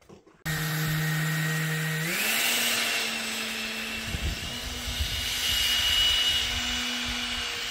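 Electric ducted fan of an RC boat running with a steady whine over a rush of air, starting suddenly about half a second in; its pitch steps up about two seconds in as the fan speeds up, then holds.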